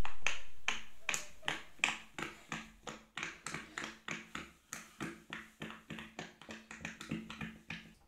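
Silicone pop-it fidget toys being pressed by fingers: a quick, irregular run of soft pops, about four or five a second, as two toys are popped bubble by bubble at once. A louder sound at the very start fades away over the first second or two.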